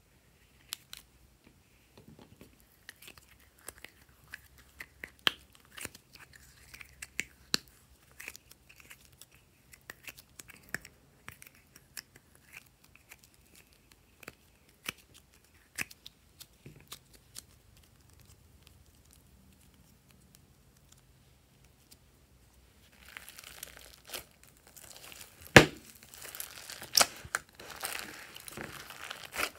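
Hands handling and pulling apart a soft watermelon-shaped clay piece over a bowl of slime, with scattered light clicks and crinkles. About 23 seconds in, hands begin pressing and stretching the slime, giving denser sticky crackling and popping; the sharpest pop comes a couple of seconds later.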